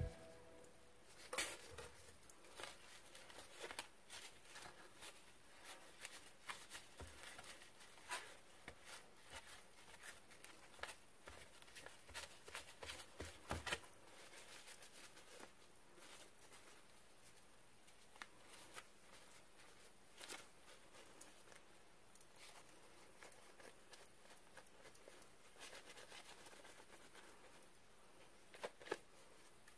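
Faint rubbing and rustling of a paper towel polishing a stained glass suncatcher, with scattered light clicks and taps as the glass piece is handled. The sounds come thickest in the first half, then thin out to a few isolated clicks.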